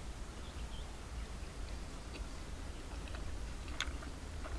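A man chewing a mouthful of braised beef leg meat, with faint wet mouth clicks, a few of them near the end.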